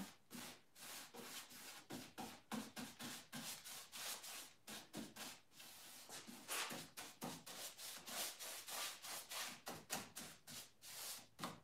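Paintbrush bristles swishing over the primed wood of a cabinet frame in short, repeated strokes, a few a second.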